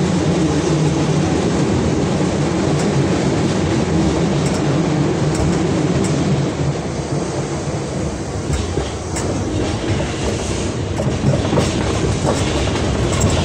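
Hankyu 8000-series electric train running, heard from inside the front car: a steady rumble of wheels on rail. In the second half come a series of sharp clacks as the wheels cross rail joints or points.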